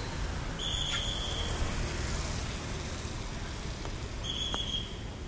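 Road traffic on a wet street: motorbikes and cars passing, a steady low engine rumble with tyre hiss. Two short high-pitched beeps, about three and a half seconds apart, stand out above it.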